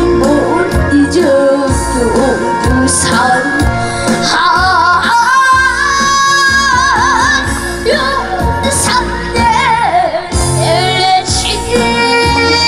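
Korean trot song: a solo singer holding long notes with heavy vibrato over a backing track.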